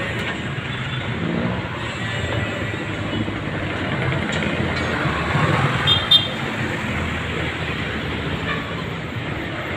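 City street traffic noise, a steady mix of passing vehicle engines and tyres, with a short horn toot about six seconds in.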